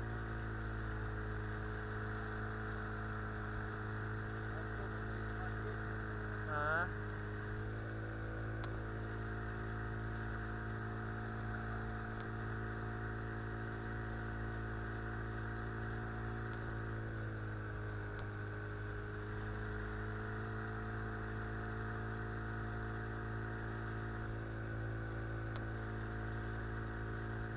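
Boat outboard motor running at a steady speed, an even droning hum whose pitch sags slightly for a couple of seconds past the middle.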